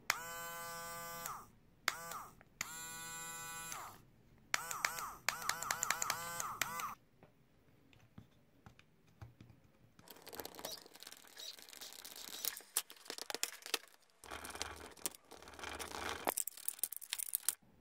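Cordless electric screwdriver's small DC motor and gearbox running in short bursts as the switch is pressed: a whine that rises as it spins up, three runs of about a second or less, then several quick stop-start pulses. Afterwards, a stretch of clicking and scraping from hands working on the plastic housing and wiring.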